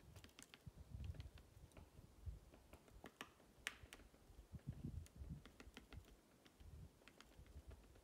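Woodpecker pecking at tree bark: faint, irregular light taps, several a second at times, over a low rumble.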